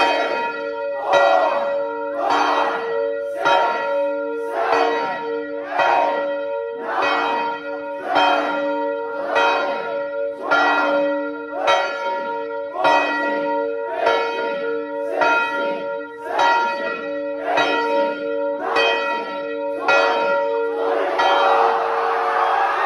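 A large victory bell being rung over and over at a steady pace, about one stroke every three-quarters of a second, its tones ringing on under each new stroke. The ringing stops near the end, and crowd cheering takes over.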